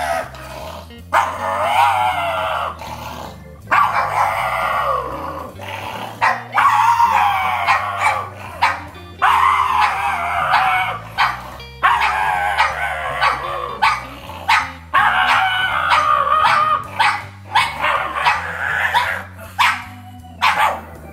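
Black pug howling, a run of long wavering howls of one to three seconds each with short breaks between them.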